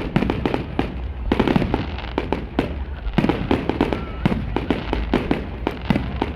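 Fireworks display: a dense, continuous run of bangs and crackles, several a second, over a steady low rumble.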